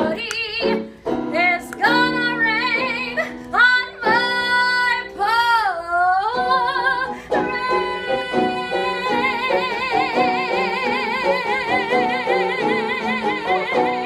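A woman singing a Broadway show tune with instrumental accompaniment. She sings short phrases for about the first half, then holds one long final note with wide vibrato.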